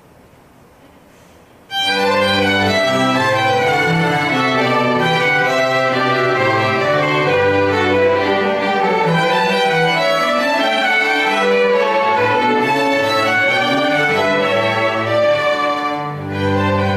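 A small bowed-string ensemble led by violins starts playing about two seconds in, over a low bass line, and carries on with a brief dip in level near the end.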